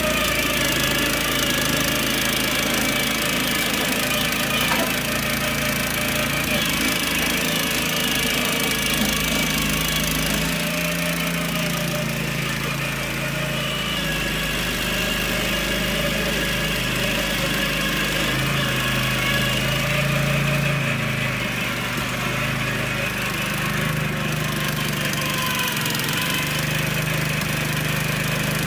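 YIKITO HD230 walk-behind tiller's 7 hp four-stroke petrol engine running steadily while the machine works the soil, its pitch dipping and rising a little now and then.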